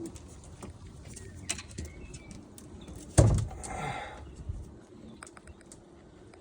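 Racing homing pigeons cooing in a loft, with scattered small clicks. There is one sharp knock about three seconds in.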